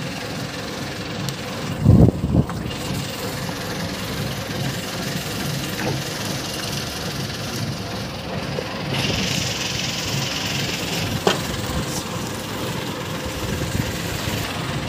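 A small boat engine running steadily, with a couple of loud knocks about two seconds in and a sharp click later on.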